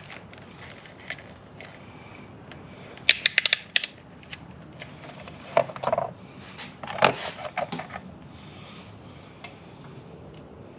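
A multimeter being handled and set to ohms: a quick run of sharp clicks about three seconds in, like a selector dial turning through its stops, then a few plastic knocks and rustles.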